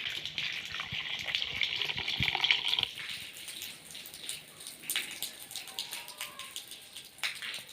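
Water pouring and splashing for about three seconds, stopping fairly suddenly, then scattered drips and patters.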